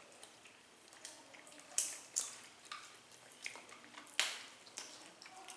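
Close eating sounds of chicken being chewed: wet chewing with a string of short, sharp smacks, the loudest about two seconds in and again past four seconds.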